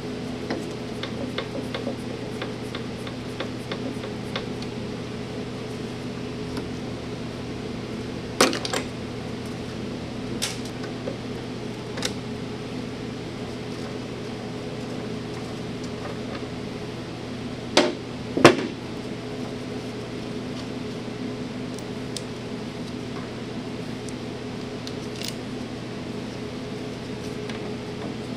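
Metal clinks and clanks from the drive chain and sprockets of a 2005 Ski-Doo Summit Adrenaline's chaincase being handled and lifted off, over a steady hum. Three sharp clanks stand out: one about a third of the way in and two close together about two-thirds through.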